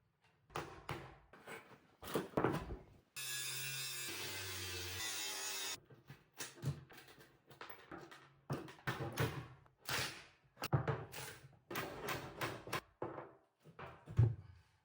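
Floor sanding on a painted wooden floor: a long run of short scraping strokes, with a small electric sander running steadily for about two and a half seconds near the start and stopping abruptly.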